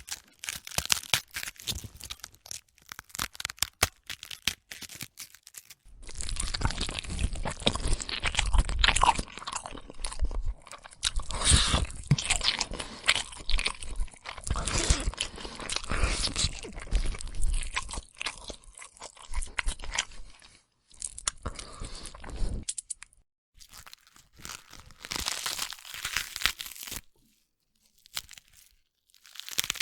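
Zombie flesh-eating sound effect: sharp cracks and snaps for the first few seconds, then dense wet crunching and chewing that runs for about 17 seconds, breaking into shorter bursts near the end.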